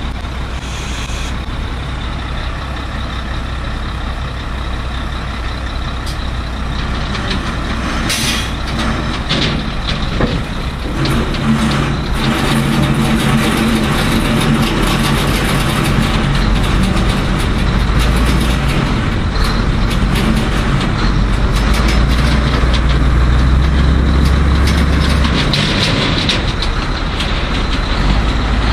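Mack prime mover's diesel engine running and working harder as the truck reverses up steel ramps onto a flat-bed trailer, growing louder about halfway through. A short, sharp hiss comes about eight seconds in.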